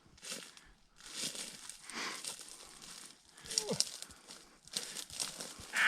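Footsteps of people walking along a dry farm path, a crunching step about every two-thirds of a second.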